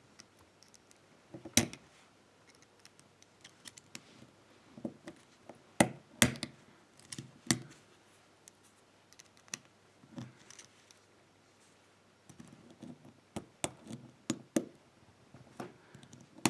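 Irregular small metal clicks and scrapes of a tool working the retaining clip off the back of a pin-tumbler lock cylinder, with a few sharper clicks and a quick run of them near the end.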